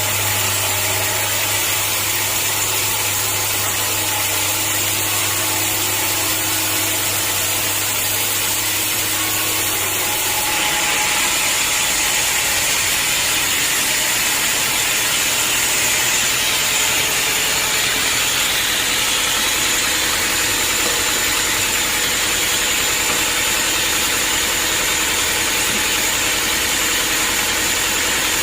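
Sawmill machinery running steadily with an engine-like drone. About ten seconds in the sound shifts: a low steady hum drops out and a higher hiss grows stronger.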